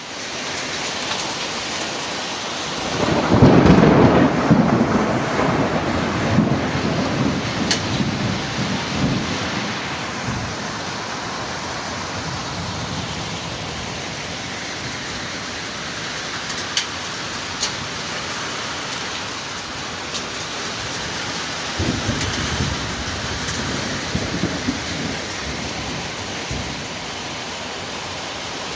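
Heavy rain pouring down steadily, with two rolls of thunder: a loud one about three seconds in that dies away over several seconds, and a weaker one about three-quarters of the way through.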